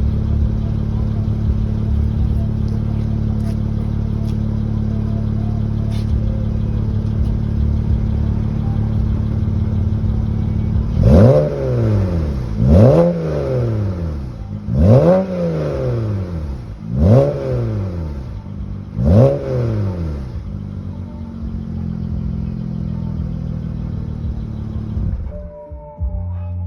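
A 2009 BMW 335i's twin-turbocharged straight-six on its stock exhaust, idling steadily, then revved five times in quick blips about two seconds apart. It settles back to idle and cuts off suddenly near the end.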